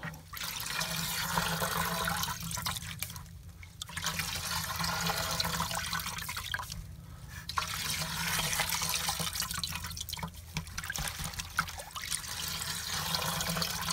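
Uni foam air filter being dunked and swished in a bucket of gasoline, the liquid sloshing and splashing in several bouts with short pauses between them.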